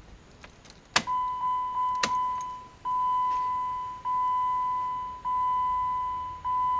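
A sharp click, then a 2016 Jeep Wrangler's dashboard warning chime sounding a steady single-pitched ding that repeats about every 1.2 seconds, each one starting sharply and fading. A second click comes about a second after the first.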